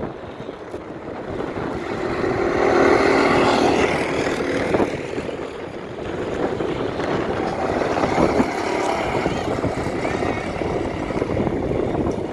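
Go-kart engines running on the track, swelling as karts pass, loudest about three seconds in and again around eight seconds in.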